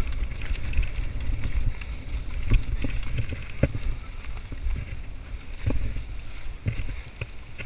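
Mountain bike being ridden, with wind rumbling on the microphone and scattered sharp clicks and knocks from the bike over rough ground.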